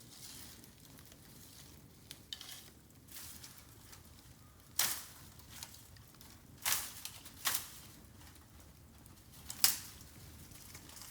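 Bamboo burning in an open fire, crackling softly with four sharp pops, the loudest near the end.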